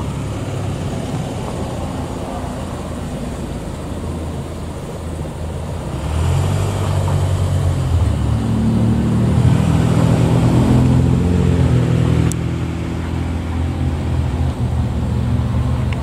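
A motor vehicle engine running close by, a low rumble that grows louder about six seconds in.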